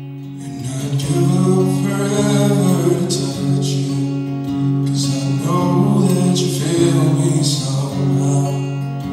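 A male vocalist singing into a microphone while strumming an acoustic guitar. The guitar plays alone at first, and the voice comes in about a second in.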